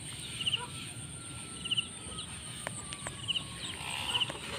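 Rural outdoor ambience: a short, high chirp repeated roughly every second or so over a steady high-pitched whine, with a few faint clicks.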